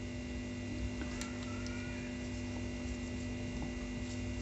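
Electric nail drill (e-file) humming steadily, with a few faint clicks as a ceramic bit is swapped in the handpiece.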